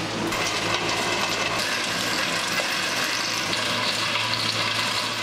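Compact tractor's engine running steadily under load while its rear-mounted rotary tiller churns soil: a constant low engine hum under a dense, steady rushing noise.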